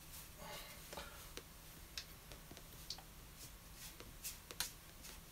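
Faint brush work on watercolour paper while applying masking fluid: a light scratchy rub near the start, then a few small sharp clicks, the loudest about four and a half seconds in.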